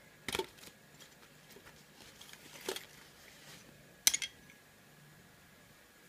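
Three short metallic clicks and clinks from the small steel lockpicking tools and brass lock plug being handled, the last, about four seconds in, the loudest.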